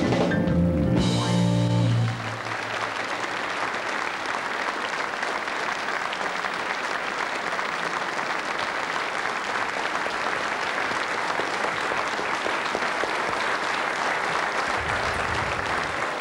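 A song's last held chord ends about two seconds in, and a large theatre audience then applauds steadily.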